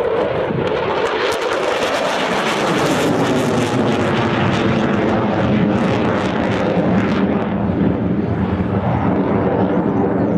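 Eurofighter Typhoon's twin Eurojet EJ200 turbofans passing overhead: loud, continuous jet noise that crackles most strongly in the first half, then eases slightly toward the end.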